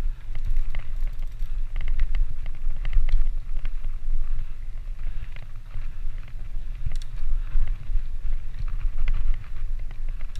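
Wind rumbling on the camera microphone as a mountain bike rolls fast down a dirt forest trail, with many short clicks and rattles from the bike over the bumpy ground.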